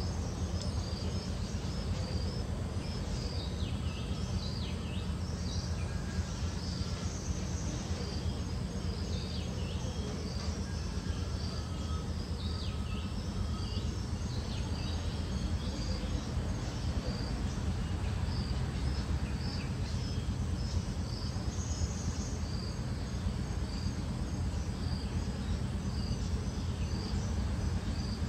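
Woodland insects chirping in a steady, high, pulsing chorus, with a few short falling calls now and then, over a steady low rumble.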